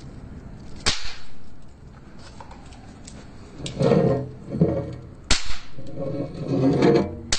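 Pop-pop snappers (bang snaps) bursting on a tiled floor with sharp cracks: one about a second in, one past five seconds and one near the end, with a few fainter snaps between.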